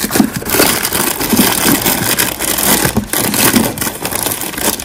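Jars and packets rattling and scraping in a plastic organizer as a hand rummages through a kitchen drawer, with many small clicks and knocks.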